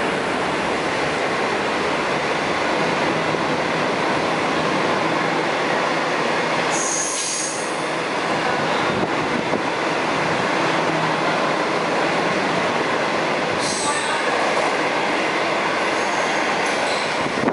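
Passenger coaches of the Guangzhou–Kowloon Through Train running past at speed: a steady, loud rolling noise of steel wheels on rail, with a short high wheel squeal about seven seconds in and another near fourteen seconds.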